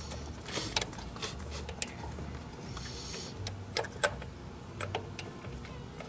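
Small metal parts clinking and tapping as the thermostat housing is set back on the tractor engine and its bolts are started by hand. Several sharp clicks, the loudest about four seconds in.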